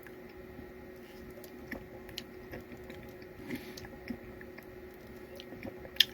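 Faint mouth sounds of someone tasting a soda: small scattered lip smacks and clicks over a steady low hum.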